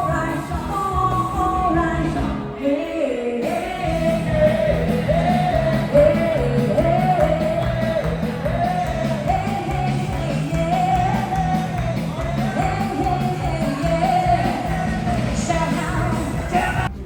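A pop-rock song with a sung vocal melody over a steady beat; the bass drops out briefly about three seconds in.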